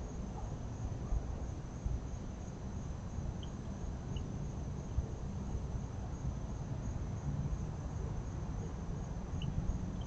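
Crickets trilling steadily in a high, fast-pulsing band over a low rumbling background, with a few brief high chirps about three and four seconds in and again near the end.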